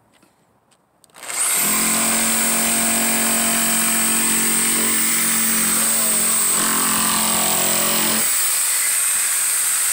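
A corded Ridgid jigsaw starts about a second in with a brief rising whine, then runs steadily, its blade cutting through a sheet of wood. About eight seconds in the cutting sound drops away while the motor keeps running, the trigger staying locked on because the lock-on button was pushed in.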